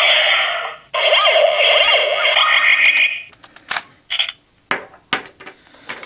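Gabutyra De Carnival toy playing its electronic sound effect through its small speaker, set off by the Gurumonite Jyudenchi battery, for about three seconds with a short break near one second. A few sharp plastic clicks follow as the battery is handled.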